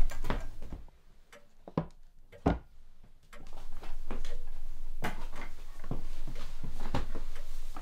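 Knocks and clinks of crockery as a baked pie in its dish is carried and set down on a table, the loudest knock at the very start, then a steady background hiss from about a third of the way in.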